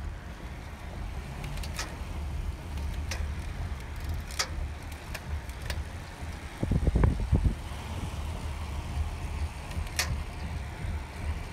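Car driving along at road speed: a steady low rumble of engine and road noise, with a gust of wind buffeting the microphone about seven seconds in and a few faint sharp clicks.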